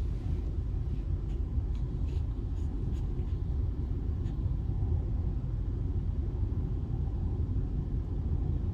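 Steady low rumble of road and engine noise inside a car, with a few faint ticks in the first few seconds.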